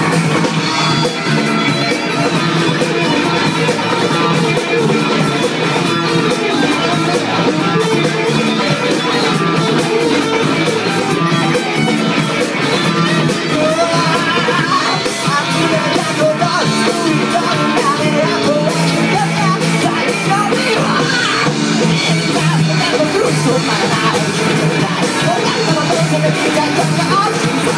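Live rock band playing loud and without a break: electric guitars, bass guitar and drum kit.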